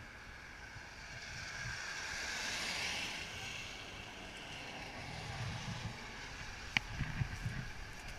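Hiss of car tyres on a wet road, swelling as a vehicle passes about three seconds in and then fading. A single sharp click comes near the end.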